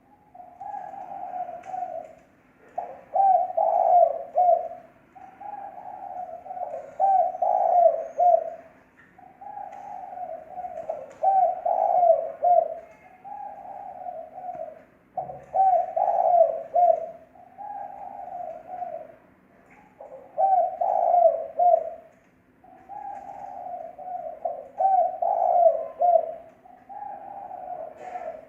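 Spotted dove cooing over and over in the deep 'thổ' style used for lure calls: a phrase of several coos about every two to three seconds, each phrase swelling to its strongest coos at the end. A faint steady hum runs underneath.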